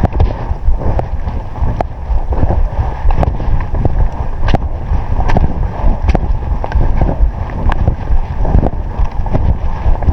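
Strong wind buffeting the microphone in a loud, rumbling rush, with scattered sharp clicks throughout.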